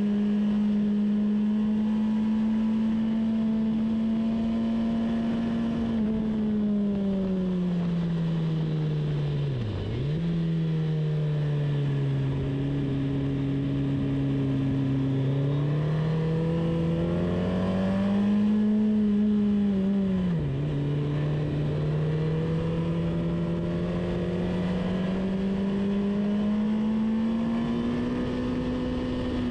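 A vehicle's engine under way on a race circuit, its note rising and falling with speed. It holds steady at first, falls away over a few seconds to a low point with a sudden dip, runs low for a while, rises, dips sharply again about two-thirds through, then climbs gradually.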